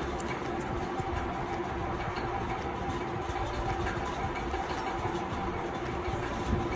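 Electric fan running: a steady rush of air with a constant hum, too much noise.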